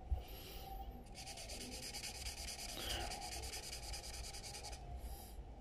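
Felt-tip permanent marker, a cheap Sharpie-style Yue Cai, scratching across paper in quick back-and-forth strokes as a swatch is coloured in. A sharp click comes just at the start.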